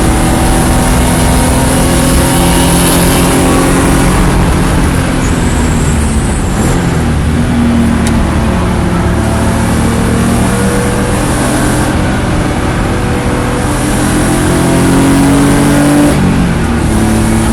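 Race car engine running hard at speed under a wash of wind and road noise, its pitch climbing and falling as the car accelerates and slows through corners. There is a longer climb near the end, then a drop.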